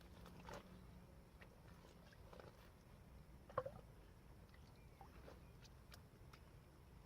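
Near silence with faint scattered clicks and one sharper click about three and a half seconds in.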